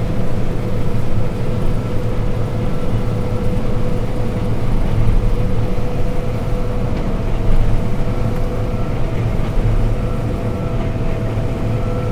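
John Deere combine harvester running steadily while harvesting, heard from inside its cab: a low, even drone with a few steady whining tones above it.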